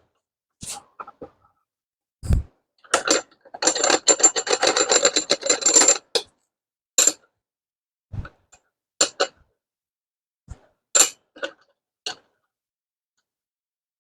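Metal clinks and knocks of hand tools working on the blade and fastener of an unplugged electric concrete saw, with two dull thumps and a run of rapid, ringing metallic clicking lasting about two seconds near the middle.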